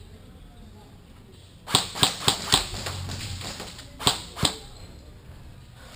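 Airsoft gun firing: four sharp shots in quick succession about two seconds in, then two more a little after the four-second mark.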